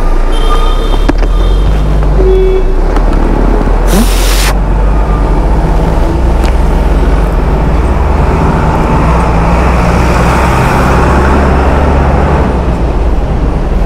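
Motorcycle on the move: steady engine and road noise with a strong low rumble, and a short loud hiss about four seconds in.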